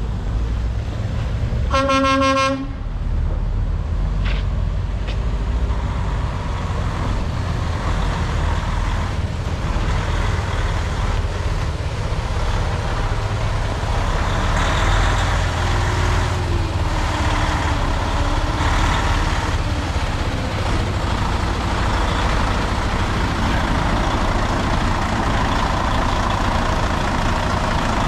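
Freightliner Cascadia semi tractor's diesel engine running steadily while the tractor-trailer manoeuvres at low speed to back in. One short horn toot about two seconds in.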